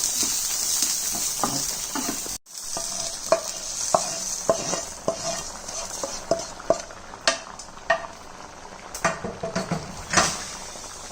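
Tempering of spices, shallots and curry leaves sizzling in hot oil. After a brief break, a metal spoon clinks repeatedly against the pot over fainter sizzling as the tempering is stirred into the sambar.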